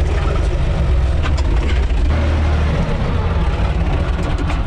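UTB 445 DT tractor's diesel engine running steadily, heard from inside the driver's cab as a loud low rumble, with a few short sharp clicks over it.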